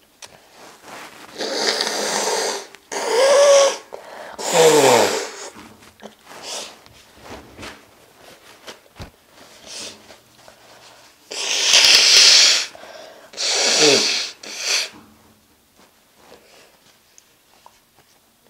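A woman blowing her nose hard in two bouts about ten seconds apart. Each bout is two or three long rushing blasts, some ending in a honk that drops in pitch.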